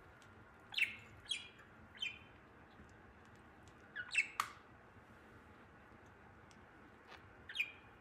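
Budgerigar giving short, sharp chirps: three spaced calls in the first two seconds, a quick cluster of three about halfway through, and one more near the end.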